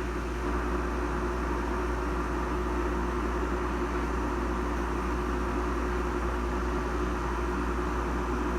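RCA air conditioner running steadily: a constant deep hum with a few held tones over an even rush of air from its fan.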